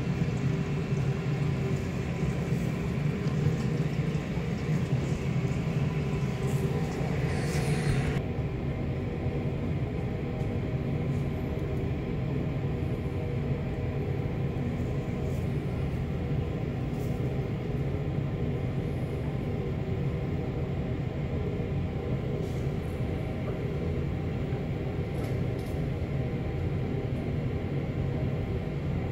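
Steady low rumble and hum, with a higher hiss on top that cuts off about eight seconds in.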